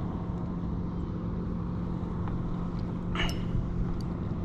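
A steady low mechanical hum, with one short burst of noise about three seconds in.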